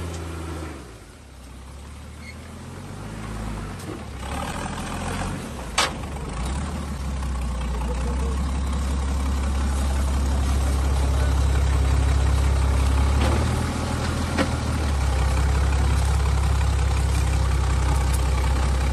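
Off-road 4x4's engine running at low revs as it crawls over a deep rutted rock step, a steady low drone that grows louder after about seven seconds. A sharp knock comes about six seconds in, and a couple of lighter knocks come later.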